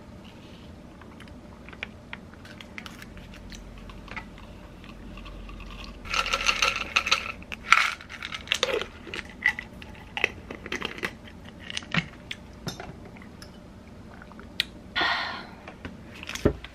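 Capsules rattling and clicking in a plastic supplement bottle as it is handled and opened, with a denser clatter about six seconds in and again near the end, then a single thump.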